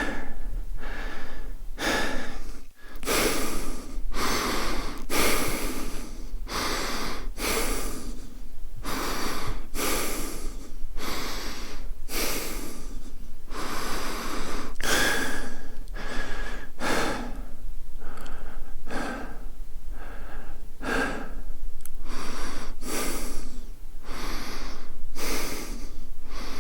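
A man breathing in and out in quick, steady succession, about one breath sound a second, each a short rush of air with no voice in it.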